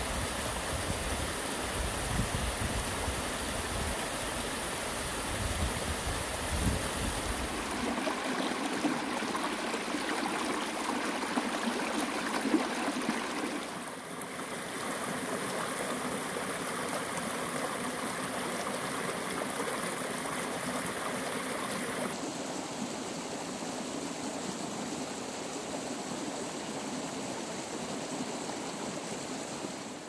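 Mountain stream water running over rocks and spilling down a small waterfall, a steady rushing. For about the first eight seconds there are low gusts of wind on the microphone, and the sound of the water shifts abruptly about halfway through and again later on.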